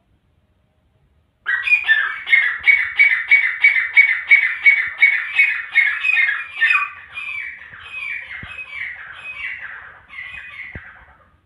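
Grey francolin calling: a rapid run of repeated call notes, about three a second, starting about a second and a half in, loud at first and then weaker before it fades out near the end.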